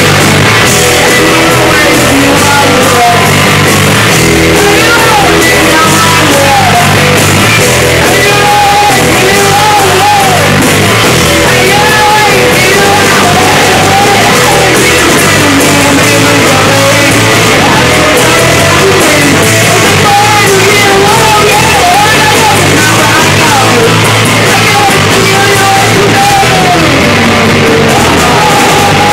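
A live grunge rock band playing loud, with a singer over guitar and the full band.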